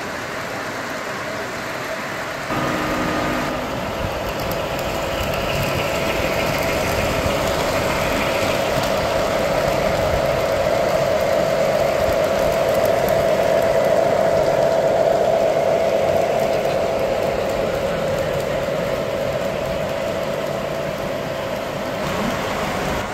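Three-rail O-gauge model trains running on the layout track: a steady rumble of wheels and motors that grows louder toward the middle and eases off near the end. A short steady tone sounds about two and a half seconds in.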